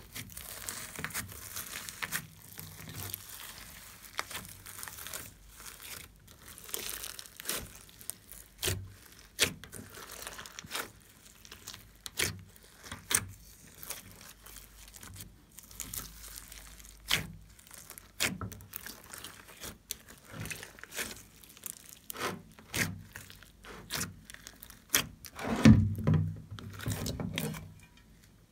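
Hands squishing, stretching and folding slime loaded with foam beads and glitter: sticky crackling with many sharp pops, and a louder, heavier squelch near the end.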